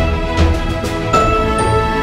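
Background music: sustained chords over a steady drum beat.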